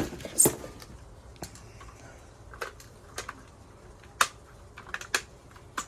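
Airsoft pump-action shotgun being handled and worked: a string of sharp, irregular clicks and clacks, the loudest about half a second in and about four seconds in.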